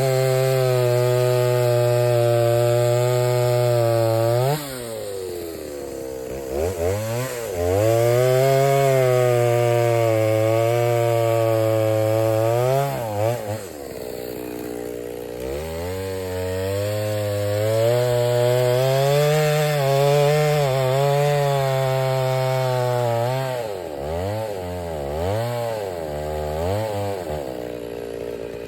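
Stihl two-stroke chainsaw held at full throttle through oak firewood rounds in three long stretches, dropping back between them. Near the end it gives several short throttle blips before settling to a lower idle.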